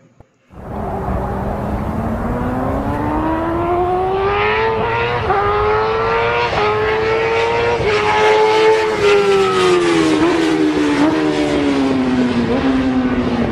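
Engine sound effect: a racing engine revving, its pitch climbing slowly over several seconds with brief dips, then falling away near the end. It starts abruptly about half a second in and is loud.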